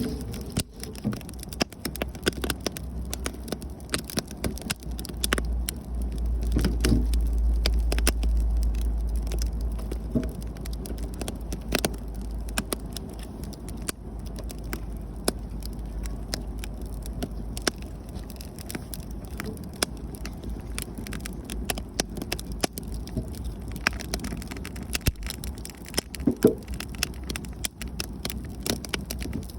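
Wood campfire crackling, with frequent irregular sharp pops and snaps. A low rumble swells for a few seconds about six seconds in.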